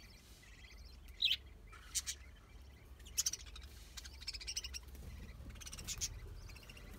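A flock of budgerigars chirping and chattering, with several sharp, louder chirps standing out from the steady warble, over a faint low hum.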